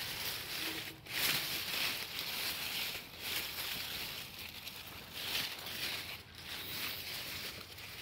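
Wet strawberry leaves rustling as a hand pushes through the plants, in uneven surges of rustle.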